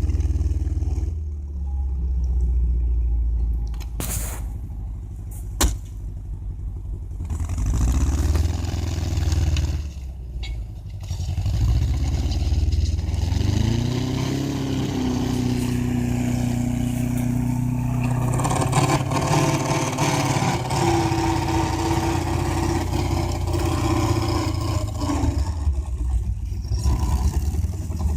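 Heavy vehicle engines running, the sound changing abruptly several times. About halfway through, one engine revs up and then holds a steady, higher note.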